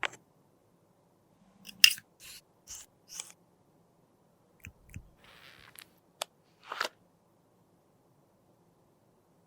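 A string of short crisp clicks, snips and brief scrapes from hand work on makeup products and tools, about nine in all, the loudest about two seconds in.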